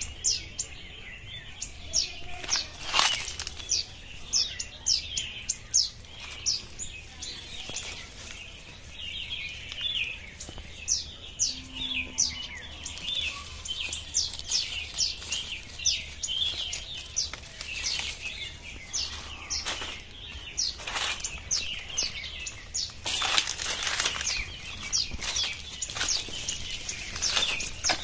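Small birds chirping: many short, quick calls repeated throughout. Leaves and branches rustle now and then as they are pushed aside by hand, loudest about three seconds in and again around twenty and twenty-three seconds in.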